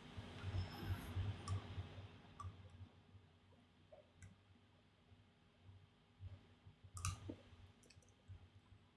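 Near silence: a low hum with a few faint, scattered clicks, the clearest about seven seconds in.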